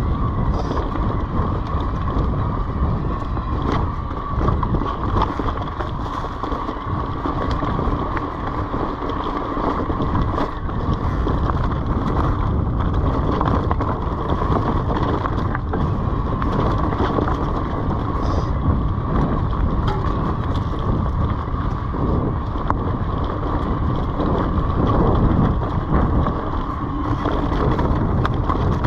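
Orbea Wild FS H25 electric mountain bike ridden over a dirt trail covered in dry leaves: a continuous rumble of tyres and wind on the microphone, with scattered clicks and rattles from the bike and a steady high whine.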